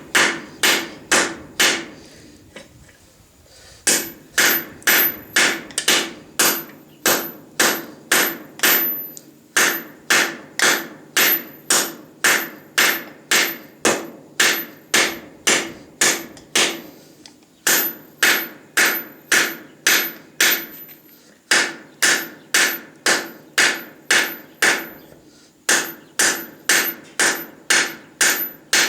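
A light 1-pound tack hammer forging hot steel bar stock on a small stake anvil built from a truck axle piece. The blows come about two a second in runs of several strokes with short pauses between, and each blow rings briefly.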